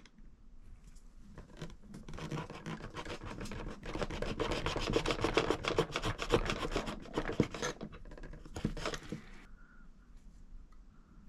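A knife blade sawing and scraping through a hydraulic brake hose in quick, short strokes, trimming the hose end square. The scraping builds up, is loudest midway, and stops near the end.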